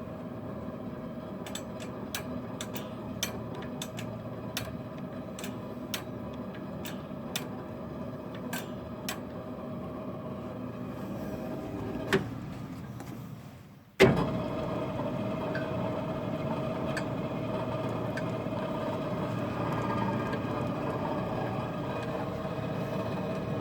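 A 62-year-old Frista washing machine running with a steady motor hum, with a run of light, uneven ticks in the first third. About halfway through, the hum fades almost to nothing, then starts again suddenly and runs on steadily.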